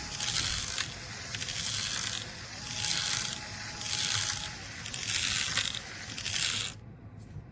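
DeWalt 20V MAX compact brushless hammer drill boring into hard material with a crushing noise. The noise swells and eases about once a second as the drill is pushed in, then drops away near the end.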